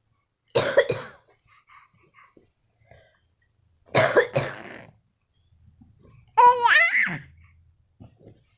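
A man coughs, once about half a second in and again at about four seconds, and a baby laughs with a short, high, rising-and-falling squeal near the end.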